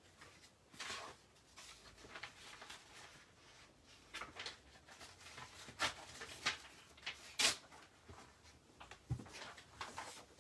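Rustling of paper and scattered small taps and knocks as someone rummages for a sheet of grid paper among craft supplies, with a dull low knock about nine seconds in.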